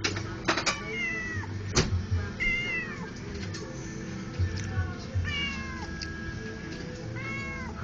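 Domestic cat meowing four times, each call falling in pitch, begging for the chicken being eaten beside it. A few sharp knocks come in the first two seconds.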